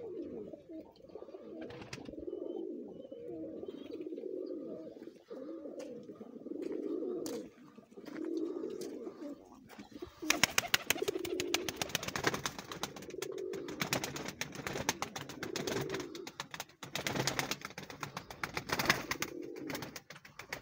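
A flock of lotan pigeons cooing, low rolling coos repeating one after another. About halfway through, a dense run of sharp clicks and taps sets in over the cooing and carries on to the end.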